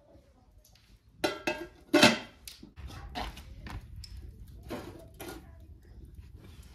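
Aluminium cooking pot and lid clanking as they are handled and the pot is set down on the metal hotplate of a wood-fired stove: two loud clanks about one and two seconds in, then lighter knocks, over a steady low rumble of the wood fire burning beneath.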